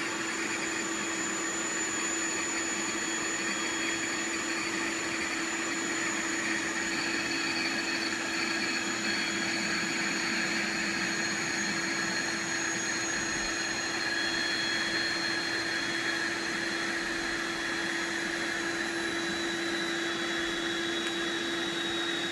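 Built-in electric air pump of an Intex air mattress running steadily and inflating the mattress, a constant hum with a high whine.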